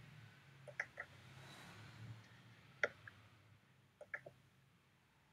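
Faint computer mouse clicks: a pair about a second in, a single sharper click near three seconds, and a quick cluster of clicks around four seconds.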